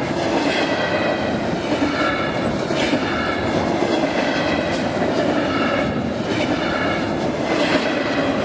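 Double-stack container train of well cars rolling past at speed: a steady rumble of steel wheels on rail with clickety-clack, and a high ringing squeal from the wheels that comes and goes every second or so.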